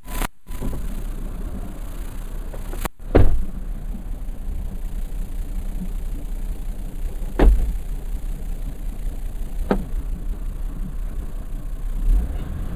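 Minivan engine running low and steady on a boat launch ramp, with three sharp thumps spaced a few seconds apart.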